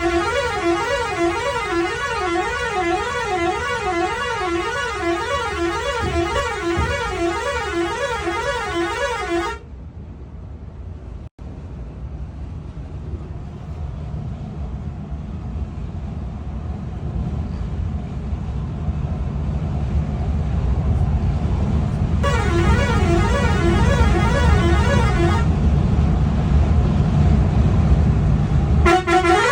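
Volvo bus horn sounding a warbling musical tone that rises and falls in a steady rhythm, held for about nine and a half seconds. A low engine rumble follows and grows louder. The warbling horn sounds again for about three seconds and briefly once more near the end.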